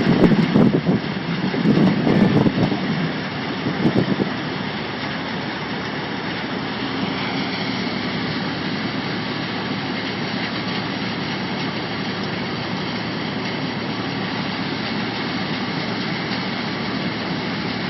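Sand washing machine running at a working site: a steady, even machine noise with a faint high whine in it. During the first four seconds there are uneven, louder low surges.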